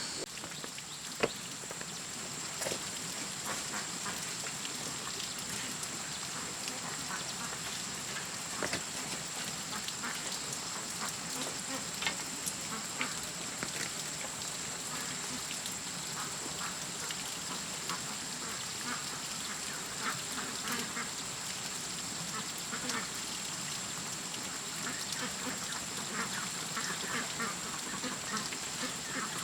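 Scattered short animal calls over steady outdoor background noise, with a thin high steady whine and occasional sharp taps; the calls come more often in the second half.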